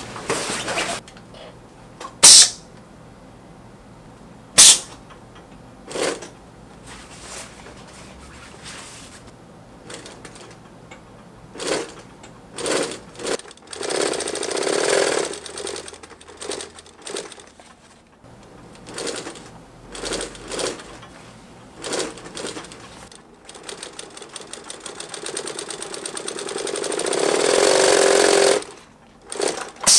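Industrial cylinder-arm sewing machine stitching binding onto nylon fabric. It runs in several short bursts and two longer runs; the last run grows steadily louder over about five seconds and then stops. Two sharp clacks in the first five seconds are the loudest sounds.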